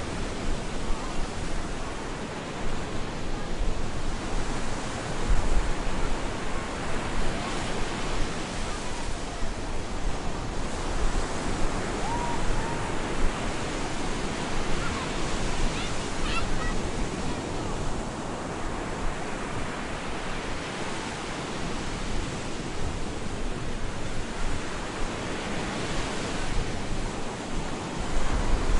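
Stormy surf on a beach: a constant rushing wash of water, with waves breaking and swelling louder every several seconds.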